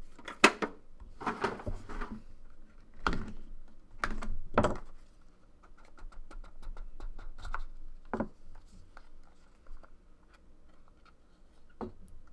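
Trading cards and their cardboard pack box being handled on a table: a few sharp taps and knocks, and a stretch of quick small clicks and scratching in the middle as the cards are worked out of the pack.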